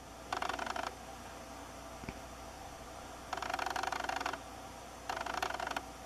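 Video camera's zoom or focus motor running in three short bursts of fine, rapid rattling whir, the middle one about a second long.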